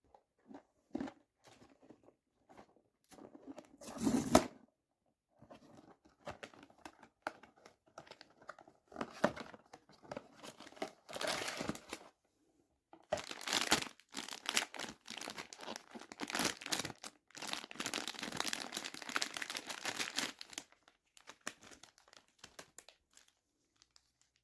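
Blind-box packaging crinkled and torn open by hand, in irregular bursts of rustling and tearing, with the longest stretch about two-thirds of the way through.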